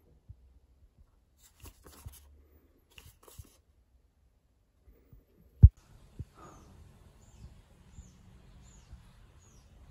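Faint room sound with a few soft clicks and one short, low thump about halfway through. After the thump, faint, short, high bird chirps repeat about twice a second.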